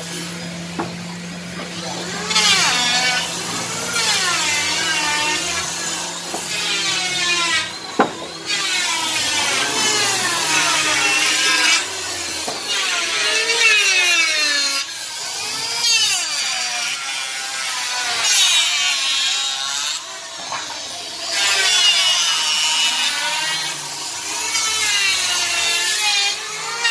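Woodworking power tools running on wood, their whine rising and falling in pitch as they bite and ease off, in phrases of a few seconds. A steady motor hum runs under the first third, and there is one sharp knock about eight seconds in.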